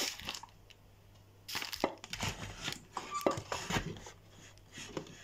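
Handling noise: after a quiet second and a half, a run of irregular clicks, knocks and rustles, with a brief high squeak about three seconds in.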